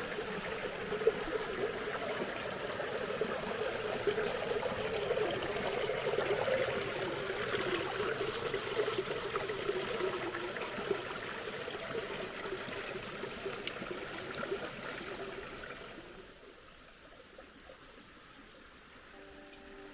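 Water rushing and splashing in a stream or waterfall, uneven and churning, that drops away abruptly about four seconds before the end.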